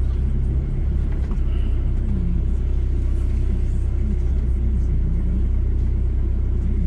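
VW T4 campervan driving slowly, heard from inside the cab as a steady low engine and road rumble.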